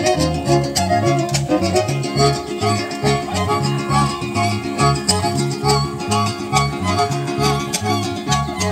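Dance music played on fiddle and guitar: the fiddle carries the melody over strummed strings and a bass line that alternates notes in a steady beat.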